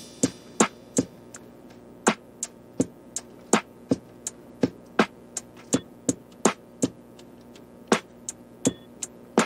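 Background music beginning: a sparse beat of sharp, clicking percussion hits, about three a second, with a short break near the end.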